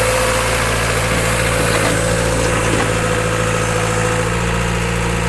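MS110 hydraulic excavator's diesel engine running steadily, with a steady tone above the low engine sound.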